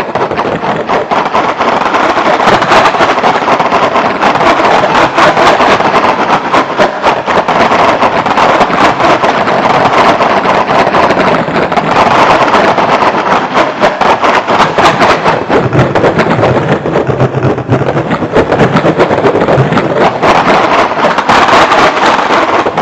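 Computer-generated electronic music: a dense, loud, continuous grainy noise texture made of rapid-fire clicks, without clear melodic notes, swelling a little every few seconds. A low hum joins it briefly about two-thirds of the way through.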